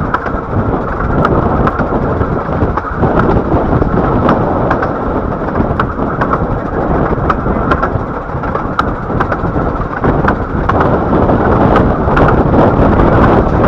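Bure Valley Railway 15-inch gauge train running along the line, heard from on board: a loud, steady rumble of the wheels and carriage, with many sharp irregular clicks.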